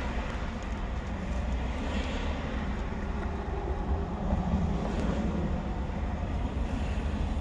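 Steady low rumble of vehicle and street traffic noise, swelling slightly about four to five seconds in.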